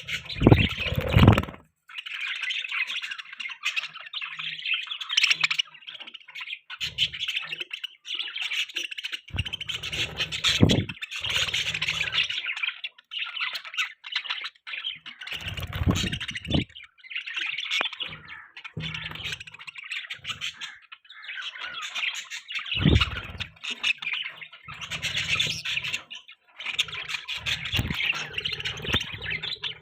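Pet budgerigars chirping and warbling in a busy, near-continuous chatter, with a few short low thuds or rumbles now and then.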